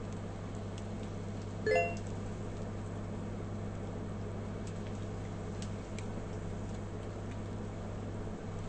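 A steady low electrical-sounding hum, with one short, high, chirp-like sound nearly two seconds in.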